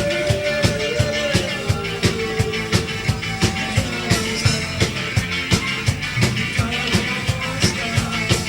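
Live rock band playing an instrumental stretch between sung lines, the drum kit keeping a steady, fast beat under sustained instrument notes.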